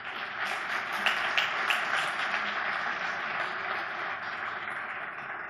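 Audience applauding, starting suddenly and continuing steadily, easing off slightly near the end, to welcome a speaker onto the stage.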